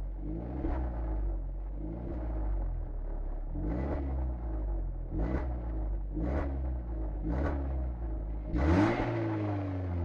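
Renault Laguna 2.0 16V four-cylinder petrol engine on its stock exhaust, idling and blipped by the throttle about five times. Near the end it gets a longer, higher rev that falls back toward idle.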